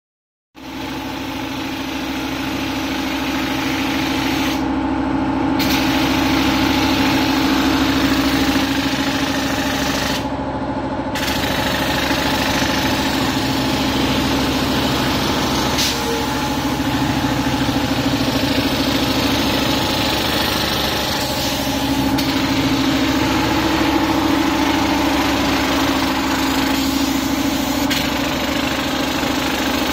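Handheld rug tufting gun running continuously, its needle punching yarn rapidly through the backing cloth: a loud, steady mechanical buzz. It starts about half a second in.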